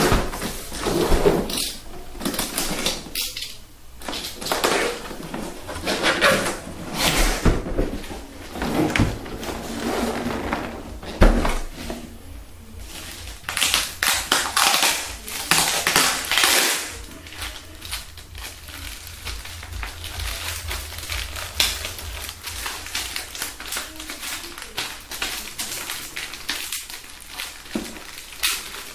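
Cardboard box and packaging being handled while it is opened and unpacked: rustling, sliding and scraping of cardboard and plastic wrapping with scattered light knocks, busiest in the first half and quieter later.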